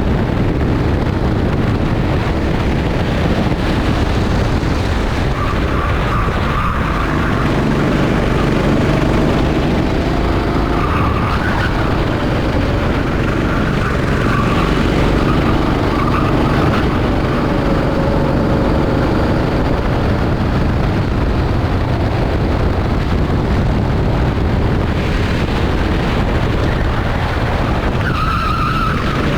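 Rental go-karts' small engines racing, their pitch rising and falling with the throttle over a steady loud rumble.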